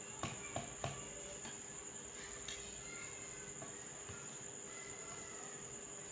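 A few soft taps and clicks in the first second from hands shaping and sealing a potato samosa roll, over a constant high-pitched whine and a faint steady hum.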